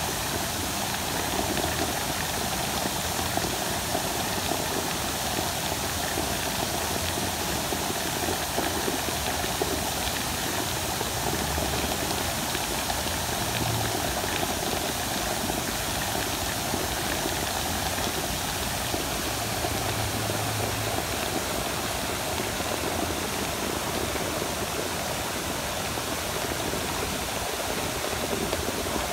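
Fountain jets spraying and splashing into a pool: a steady rush of falling water.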